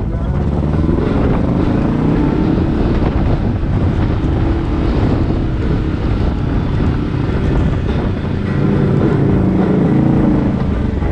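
Kawasaki KRX 1000 side-by-side's parallel-twin engine running under way, its pitch climbing and falling with the throttle, over heavy wind buffeting on the microphone.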